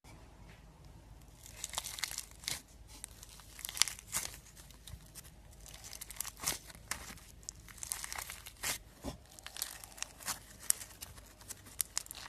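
Slime being squeezed and stretched by hand, giving irregular crackling clicks and pops, several a second.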